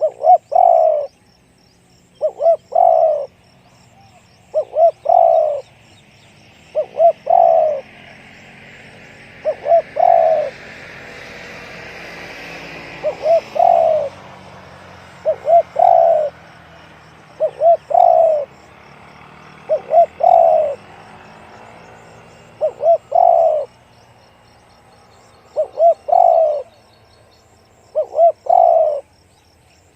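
Spotted dove cooing: a short phrase repeated about every two seconds, about a dozen times. A faint rushing noise swells and fades through the middle.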